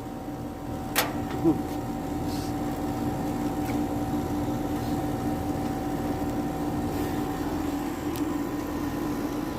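Air conditioner compressor running with a steady hum and fan noise, now started by an added hard-start capacitor after failing to start on its own. A single sharp click about a second in.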